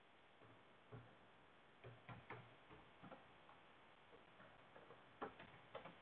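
Computer keyboard keys being typed, faint irregular clicks as a few words are entered.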